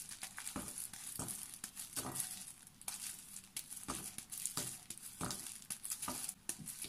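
A milk chocolate bar being snapped into pieces by hand in plastic gloves, a string of short, sharp snaps and clicks as the pieces break and drop into a glass bowl, with a faint crinkle of the plastic gloves.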